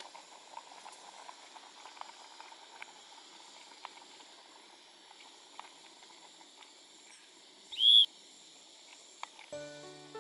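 Gas canister camp stove burner hissing steadily under a pot of pasta water, with small ticks from the pot. About eight seconds in comes a brief, loud, high squeal as the pot is handled.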